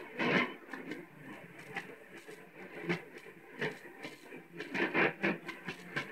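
Sony boombox's AM radio receiving a weak, noisy signal: muffled, broken broadcast sound in uneven bursts over a steady hiss, with no words clear enough to make out.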